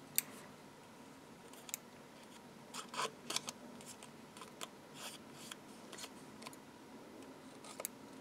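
Small pointed scissors snipping the little white tabs off a die-cut card decoupage piece: a series of short, sharp snips, the loudest just after the start and several close together about three seconds in.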